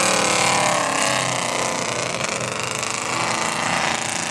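Big GMC mud truck's engine running hard at high revs, steady, as it plows through a mud bog pit.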